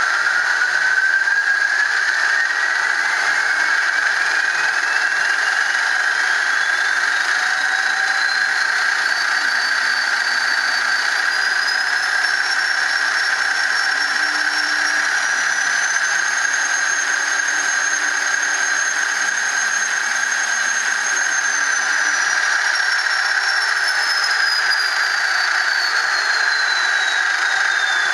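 Soundtraxx Tsunami sound decoder in an HO scale ALCO S4 model playing its turbocharged ALCO 539T diesel sound through the model's small speaker, throttled up to full. The turbo whine climbs in pitch step by step with each throttle notch, holds high, then falls back down over the last third as the throttle is brought back.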